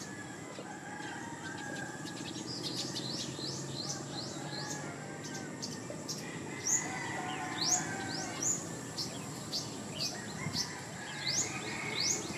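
Birds calling with short, sharp, rising chirps, repeated about once a second from a couple of seconds in, over a steady low background hiss.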